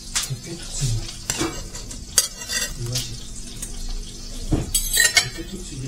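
Metal utensils clattering against an electric contact grill and plates as burger patties are lifted off, with sizzling from the grill. Sharp clinks come about two seconds in and again near the end.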